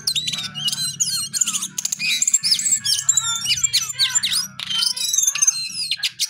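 Male jongkangan, a caged songbird, singing a fast, varied song of whistles, chirps and rising and falling notes, almost without a break.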